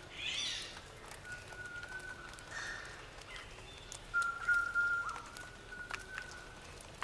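Birds calling: long, steady whistled notes, two of them held for about a second each, and a quick sweeping chirp right at the start, over a background of scattered faint sharp clicks.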